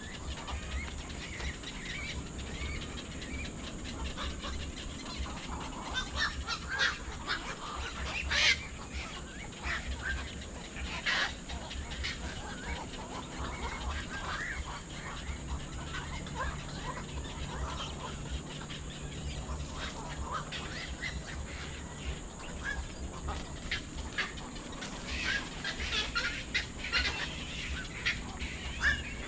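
Birds calling with many short, scattered calls, the sharpest about eight and eleven seconds in and a busier flurry near the end, over a steady low rumble.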